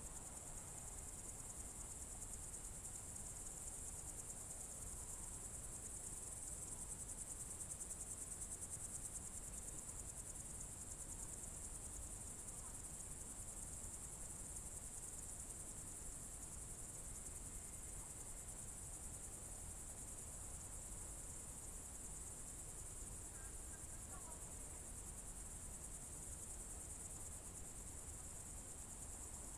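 Crickets trilling: a steady, high-pitched, unbroken chorus that holds level throughout.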